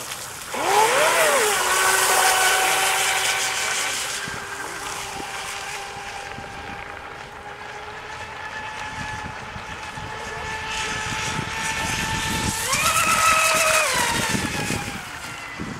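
A radio-controlled outrigger racing boat running flat out. Its motor winds up to a high, steady whine about half a second in and fades a little as the boat runs off. It swells louder again near the end as the boat comes back past, and its pitch drops as it goes by.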